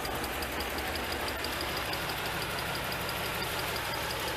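1988 Pontiac Trans Am GTA's tuned-port V8 running steadily, with a faint high tick repeating several times a second. It is not running right, which the owners think could be a vacuum leak or a fuel mixture fault.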